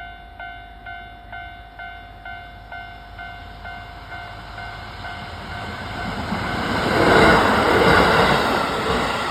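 Level crossing warning bell ringing about twice a second, then a two-car diesel railcar train, a Kiha 150 and a Kiha 40, running up and passing over the crossing, loudest about seven to eight seconds in.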